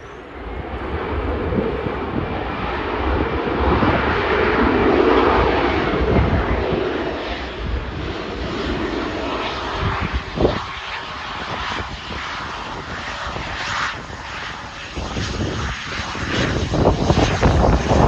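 Turbofan engines of a rear-engined twin-jet business jet on its takeoff roll, their roar swelling over the first few seconds and then holding loud. Wind buffets the microphone toward the end.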